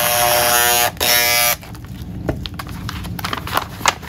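Handheld corded electric scissors cutting along the edge of a padded mailing envelope. The small motor whines steadily for about a second, stops briefly, runs again for half a second and cuts off. After that come a few light clicks and rustles of paper.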